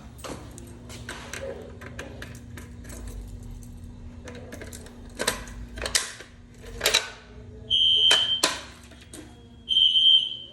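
A run of sharp clicks and knocks, then from about eight seconds in a shrill electronic alarm tone sounding in bursts of about a second. A low steady hum runs underneath.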